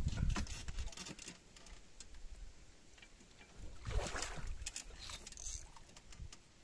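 A hooked fish splashing and thrashing at the water's surface once, briefly, about four seconds in, with scattered clicks and low knocks from the rods being handled close by.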